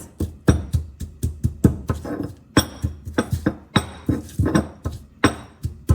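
Pestle pounding garlic and chilli in a mortar, a steady run of thuds at about three strokes a second.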